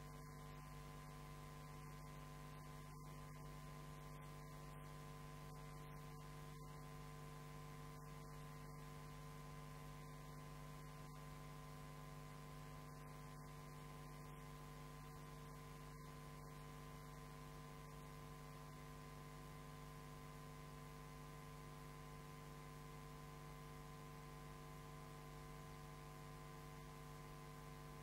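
Near silence with a steady electrical hum made of several fixed tones.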